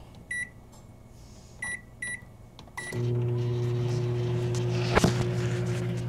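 Microwave oven keypad beeping four times as the time is entered, then, about three seconds in, the oven starts running with a steady low hum. A single sharp click sounds about five seconds in.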